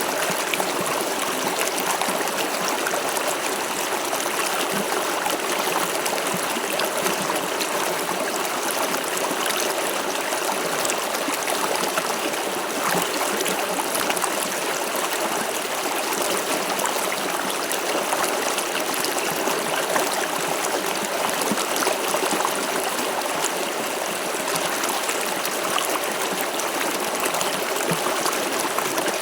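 River water flowing steadily over stones, a constant rushing and babbling with no break.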